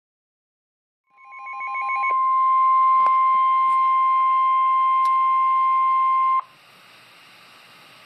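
NOAA Weather Radio receiver sounding the 1050 Hz warning alarm tone, the signal that a broadcast warning is about to be read: one steady high-pitched tone that swells in about a second in, with a short burst of rapid beeping under its start, holds for about five seconds and cuts off suddenly, leaving faint radio hiss.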